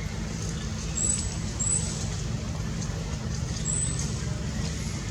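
Steady low rumble of a running motor vehicle, with a few short high-pitched chirps over it.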